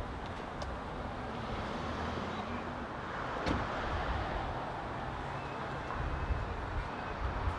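Street traffic: a car driving past, its tyre and engine noise swelling and fading about halfway through, with a single sharp click near the middle.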